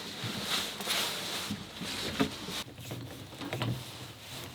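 Light knocks, taps and rustling of objects being handled, a few scattered clicks with no steady rhythm.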